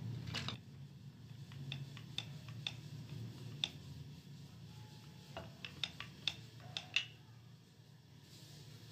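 Wooden rolling pin rolling out a ball of tortilla dough on a floured marble board: irregular light clicks and taps of the pin against the stone, over a low steady hum.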